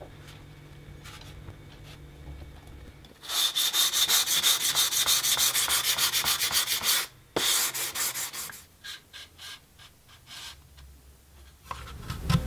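Hand-sanding a carbon-fibre part with sandpaper wrapped around a block. Quick, even back-and-forth scratching strokes start about three seconds in, break off briefly, then thin out to scattered strokes and stop.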